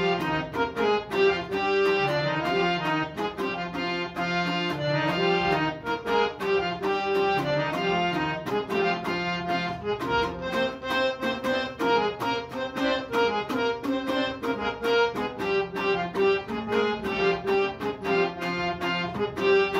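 Harmonium and dambura playing a Hazaragi instrumental tune (naghma) together. The harmonium holds steady, reedy notes while the dambura is strummed in fast, even strokes.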